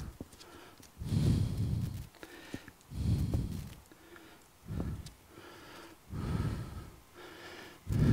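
A man breathing heavily close to the microphone, with a loud breath out about every two to three seconds and softer breaths between, as he strains to work a snap ring off a mower spindle with snap-ring pliers. A few faint small clicks are heard now and then.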